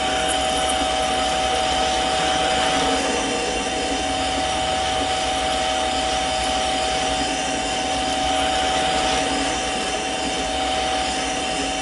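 Mini lathe running under load while a parting-off blade in a spring tool holder cuts into a 1-1/4 inch 1018 steel rod: a steady machine whine with the scrape of the cut.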